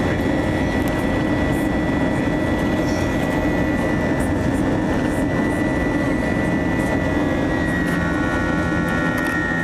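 Airbus A321's jet engines heard inside the cabin: a steady rush with a constant high whine. Near the end the whine dips slightly and a few new steady tones join in.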